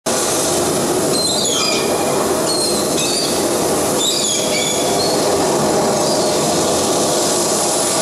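Storm sound effect played over a theatre sound system: a steady loud rush of wind and sea, with short high squeals sliding downward over it during the first few seconds.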